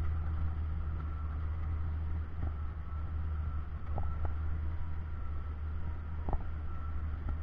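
Engine and road noise of a 1976 Jeep CJ5 heard from inside its cab while driving a rough dirt track: a steady low rumble with a faint steady high whine, broken by a few short knocks and rattles.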